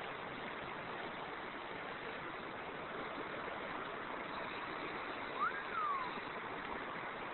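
River water rushing steadily. About five and a half seconds in, a short whistle-like chirp rises and then falls in pitch.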